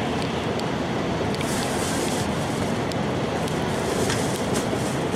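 Tokaido Shinkansen train running at speed, heard from inside the passenger car: a steady rumble and rush of rolling and wind noise, with a brief rise in hiss about a second and a half in.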